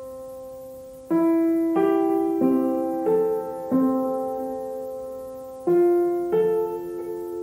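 Slow background piano music: notes and chords struck one after another, each ringing and fading, with one chord held for a couple of seconds in the middle.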